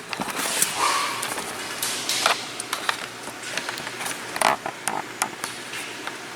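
Scattered light clicks, taps and brief scrapes of hands handling the plastic steering-wheel trim, with a small cluster of clicks about four to five seconds in.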